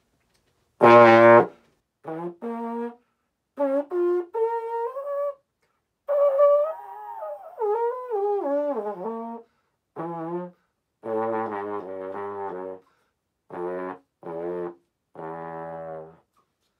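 Small-shank valve trombone played with a Bach 12C mouthpiece as a try-out: one loud note about a second in, then a string of short notes and phrases. Around the middle a run slides downward, and it ends with a few longer held notes.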